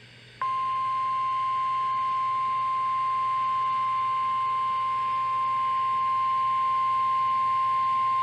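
NOAA Weather Radio warning alarm tone: one steady 1050 Hz beep that starts about half a second in and holds unbroken, over faint radio hiss and hum. It signals that a warning broadcast follows.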